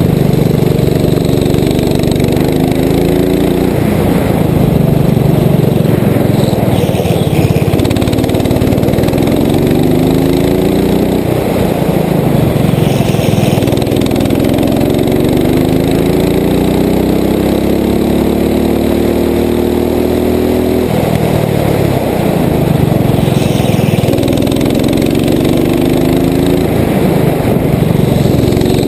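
Rental go-kart's small engine heard from on board at race pace: its pitch climbs along each straight and drops back when the driver lifts off for a corner, several times over, with the longest climb in the middle.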